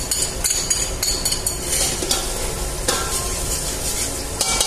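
Metal spoon scraping in quick strokes, then minced garlic frying in hot annatto oil in a metal pot, sizzling steadily as it is stirred.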